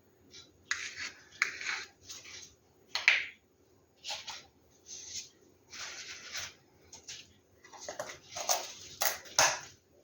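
A string of short, irregular rustles, scrapes and light taps from paint cups and bottles being handled while small amounts of paint are added to a pour painting.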